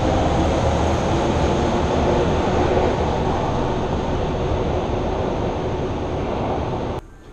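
Fukuoka City Subway train pulling out of an underground station, its running noise and motor hum slowly fading as it leaves. The sound cuts off suddenly near the end.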